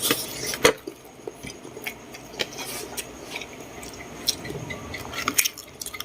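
Close-miked eating: wet chewing and squishy mouth sounds, broken by a few sharp clicks, the sharpest about two-thirds of a second in.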